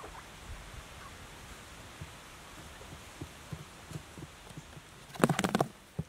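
Faint scattered soft taps, then about five seconds in a loud rapid rattling clatter lasting about half a second as the saw-blade quail trap is tripped and the hanging blade swings.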